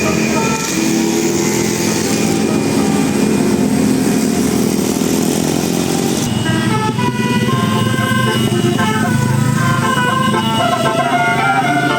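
A bus engine pulling under load, then from about halfway through a Basuri telolet horn plays a tune over it: several horn tones jumping between pitches.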